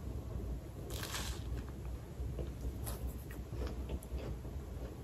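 A person biting into and chewing toast topped with egg salad: small scattered crunches and mouth clicks, with one louder noisy crunch or breath about a second in. A low steady hum runs underneath.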